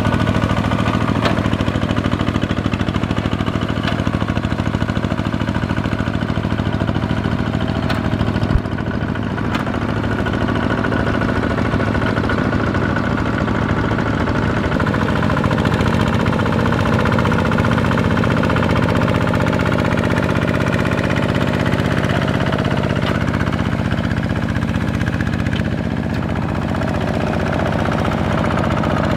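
Kubota ZT-series single-cylinder diesel engine of a walk-behind two-wheel tractor running steadily under load as it pulls cage wheels and a harrow through paddy mud. There is a single sharp click about eight seconds in, and the engine note shifts slightly about halfway through.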